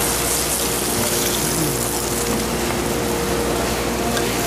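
Hot oil sizzling steadily in a sauté pan as seared white sea bass fillets are lifted out, with a steady hum underneath.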